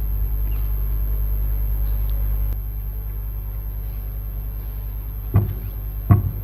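Steady low hum and room noise from the assembly hall's microphone feed, with two short knocks near the end.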